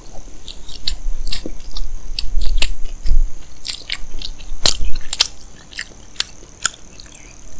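Close-miked chewing of a mouthful of spicy fried instant noodles (Indomie Goreng Aceh): a run of irregular wet mouth clicks and smacks, loudest around the middle.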